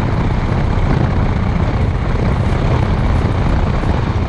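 Wind buffeting the microphone of a camera riding on a moving motorcycle: a loud, steady rush with a deep rumble underneath.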